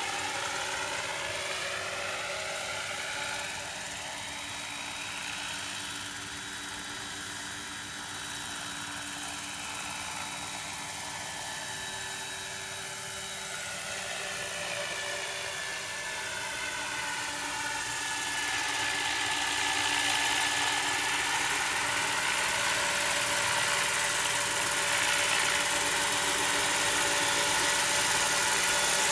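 Aérospatiale SA 315B Lama helicopter in flight: the Turbomeca Artouste turboshaft's whine over the rotor noise, with shifting tones, growing louder in the last third as it comes in low, where a steady high whine stands out.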